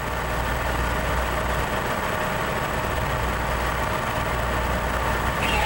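Heavy engine of fire apparatus running steadily on the fireground, a constant low hum under a wash of noise. A voice starts faintly near the end.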